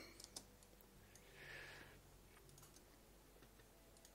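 Near silence with a few faint, sharp computer mouse clicks spread through it.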